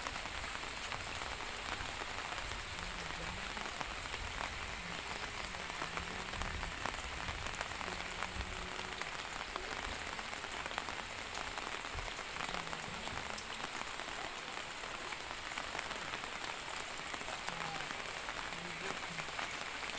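Light steady rain (drizzle) falling on roofs and wet ground, a constant hiss with many small drip ticks throughout.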